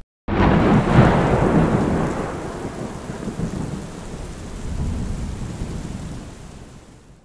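Thunderclap sound effect: a sudden crack followed by a long rolling rumble that swells again about five seconds in and then fades out.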